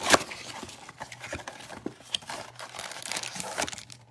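A cardboard trading-card blaster box is torn open with a sharp rip at the start. Crinkling and rustling follow as the foil card packs are pulled out and handled.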